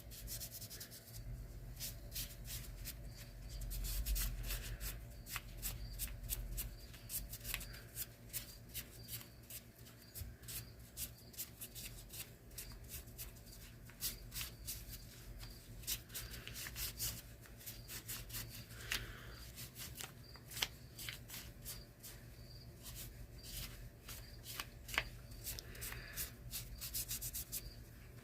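Wood stain being rubbed onto a small wooden knob with a cloth: many short scratchy rubbing strokes and small taps of the knob being handled, over a faint steady hum.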